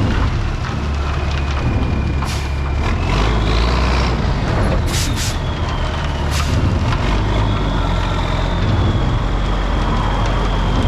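Heavy diesel equipment running with a steady low rumble, a high whine that slides in pitch, and a few short, sharp noises.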